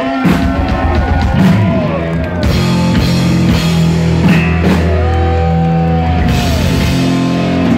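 Live heavy metal band playing a closing flourish after the farewell: distorted electric guitar on a Flying V, with pitch slides and held notes, over sustained low notes and drum hits.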